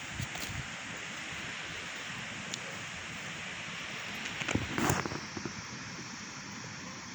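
Heavy rain falling with a steady rushing hiss, broken by a short cluster of knocks and rattles about four and a half seconds in.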